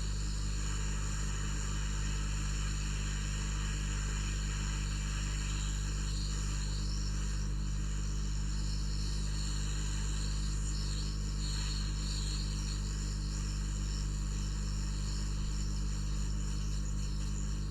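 Hot air rework station blowing on a circuit board: a steady hiss of air over a low electrical hum.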